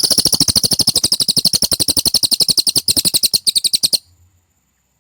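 Cililin song: a fast, even trill of sharp, high notes, about ten a second, that stops abruptly about four seconds in.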